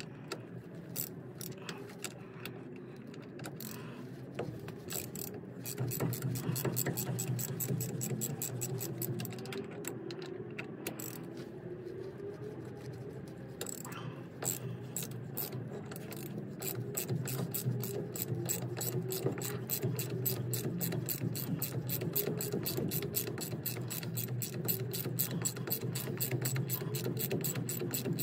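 Hand socket ratchet clicking in a fast, even run as it undoes the bolts on an armoured car's wheel hub, the clicks sped up because the footage plays at double speed.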